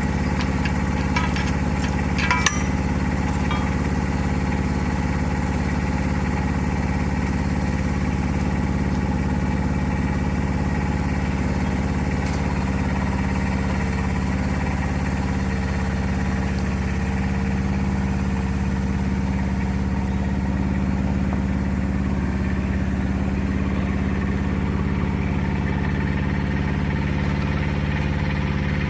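An engine idling steadily at an even pitch, with a few light sharp clicks about two seconds in.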